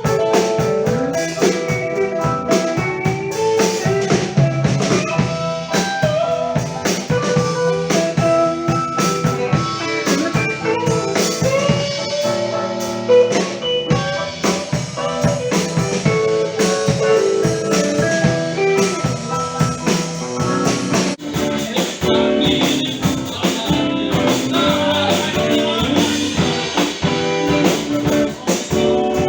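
Live band playing a blues number: a drum kit keeps the beat under a guitar line, with no singing.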